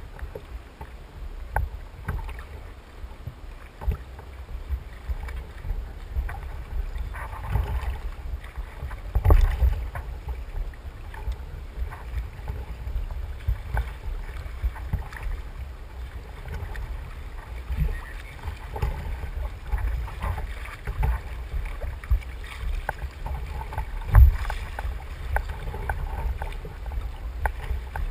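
Water lapping and slapping against the plastic hull of a Hobie fishing kayak over a constant low rumble, with scattered knocks. The loudest knocks come about nine and a half seconds in and again about twenty-four seconds in.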